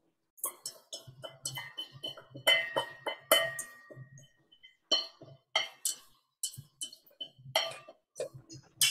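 Serving utensil and a stainless steel bowl clinking and scraping against small ceramic dishes as salad is plated: a quick string of clinks, a few of them ringing briefly.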